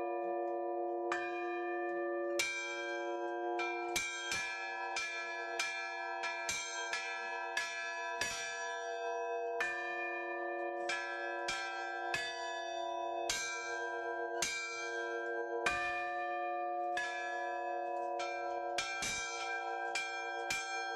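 Several church bells chimed by hand, the ringer pulling ropes that run to the bells' clappers. The strikes fall on several pitches in an uneven pattern, sometimes in quick clusters, and each bell rings on under the next.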